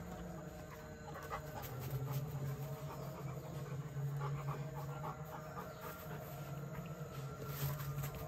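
German Shepherd panting, with scattered light ticks over a steady low hum.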